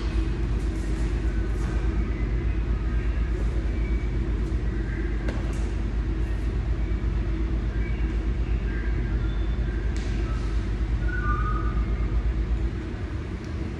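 Steady low rumble with a regular low pulsing, with faint short high squeaks scattered over it; the rumble drops in level near the end.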